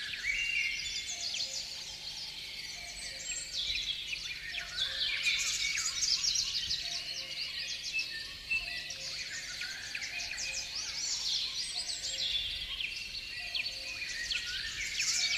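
Small songbirds chirping and twittering busily, a dense run of short high chirps that never lets up.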